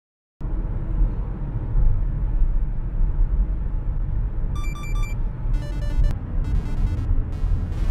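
Steady low road and engine rumble of a car cruising on a highway, heard from inside the cabin. From about halfway in, music with short repeated electronic notes comes in over it.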